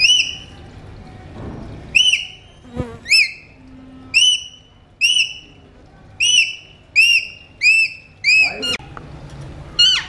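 Alexandrine parakeets giving loud, repeated calls: about a dozen short notes, each rising and then falling in pitch, coming roughly once a second, with a quick run of them near the end.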